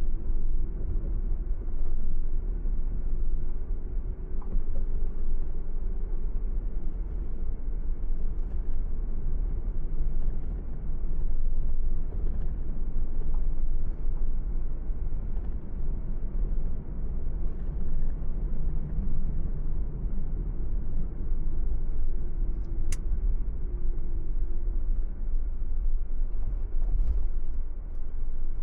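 Car driving steadily on the road: a constant low rumble of engine and tyre noise.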